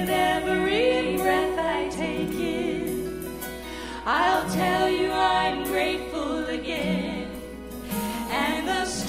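Two women singing a worship song together into microphones, in sung phrases with sliding pitch and held notes, over instrumental accompaniment.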